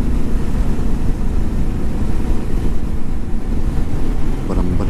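Motorcycle on the move: wind rushing over the microphone along with the bike's engine running steadily.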